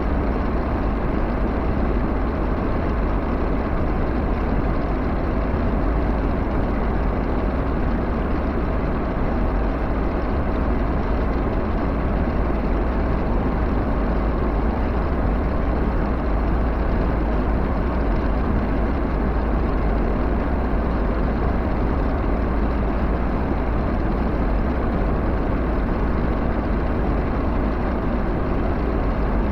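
Backhoe engine running steadily, with a constant low, even sound that does not change.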